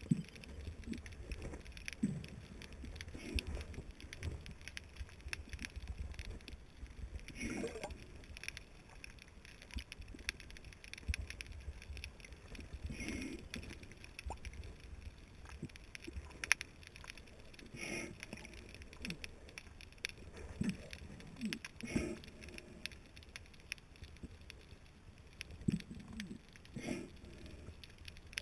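Muffled underwater noise heard through a GoPro HERO 2's waterproof housing: a steady low rumble of moving water, with irregular louder swishes and gurgles every few seconds.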